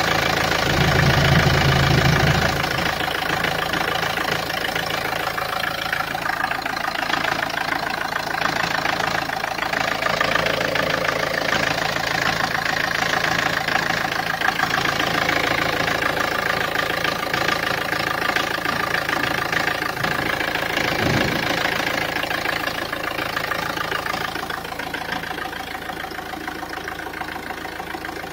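Peugeot 406's 2.0 HDi (DW10ATED, RHZ) four-cylinder common-rail turbodiesel idling steadily, with a brief louder low rumble in the first couple of seconds.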